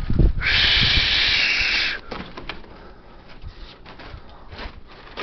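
Strong gusty wind buffeting the microphone with a low rumble, and a loud, steady hiss lasting about a second and a half near the start.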